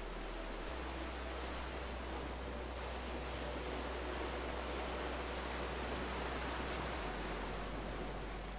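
Ocean surf washing in, a hiss of noise that swells and then eases off near the end.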